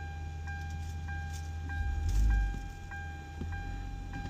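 2005 Hyundai Tiburon V6 engine idling while the clutch is retested after adjustment, its low rumble swelling briefly about two seconds in. A faint high tone pulses steadily about every two-thirds of a second over it.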